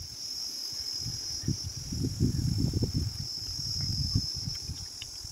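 A steady high-pitched chorus of insects buzzing, with low, irregular bumps and rustling close to the microphone.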